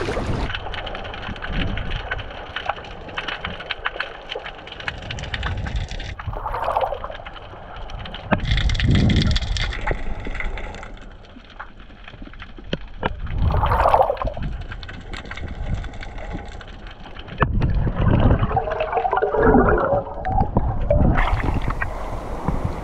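Sea water sloshing and gurgling around a camera as it dips under the surface and comes back up through choppy waves. The sound is muffled while underwater, with a few bubbly surges.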